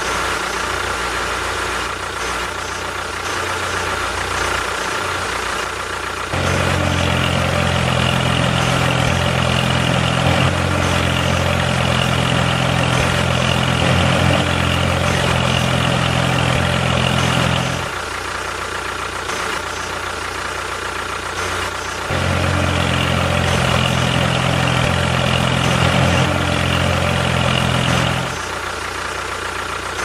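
Toy remote-control excavator's electric motors running in two long spells, from about six to eighteen seconds in and again from about twenty-two to twenty-eight seconds, over a quieter steady hum.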